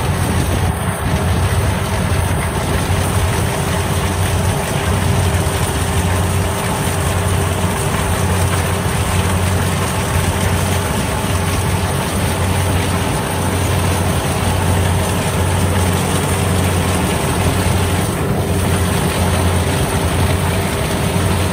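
Kubota DC-60 combine harvester running steadily: a constant diesel engine drone with a steady tone riding above it.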